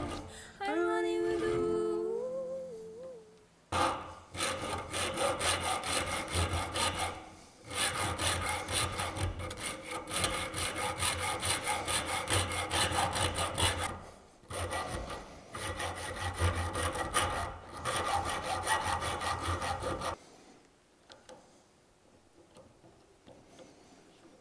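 Song with singing fades out over the first three seconds. Then, about four seconds in, a hand file scrapes back and forth on steel held in a bench vise, a few strokes a second with brief pauses. It stops shortly before the end.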